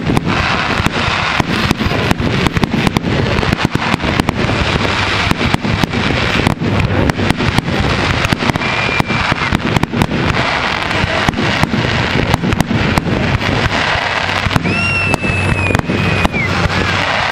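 Fireworks finale: a continuous barrage of aerial shells bursting, many bangs a second with crackle between them. Two high whistles ring over it, a short one about halfway and a longer one near the end.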